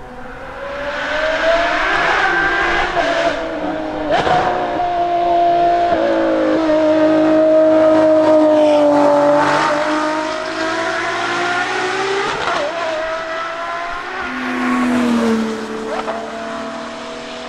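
High-revving Ferrari V12 engines, a 599XX Evo and a Daytona SP3 among them, accelerating hard past one after another on a wet track. The engine note climbs, holds high and falls away with each pass, broken sharply a couple of times, over the hiss of tyre spray.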